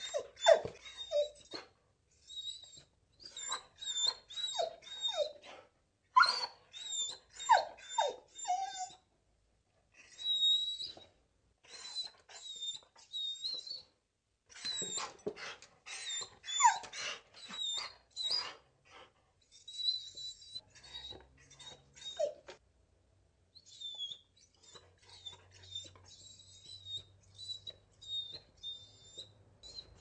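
A dog whining and whimpering in short, repeated cries, many falling in pitch, coming in clusters with brief pauses between them.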